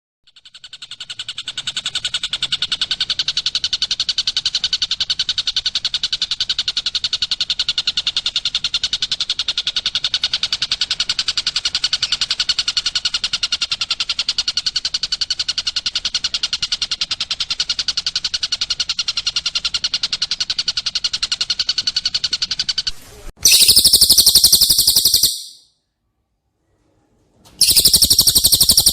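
Recorded bird-song training track of cililin and tengkek buto calls. A long, fast, evenly repeated trill rises in volume over the first second or two and holds for about twenty seconds. It breaks off abruptly into a louder, higher, harsher rapid trill, which stops, leaves about two seconds of silence, and starts again near the end.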